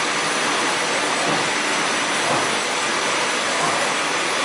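Plastic bag-making machinery running: a steady, even hiss-like machine noise with a few faint steady tones and no distinct strokes.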